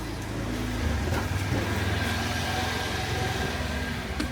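Road traffic: vehicle engines running in a steady low rumble.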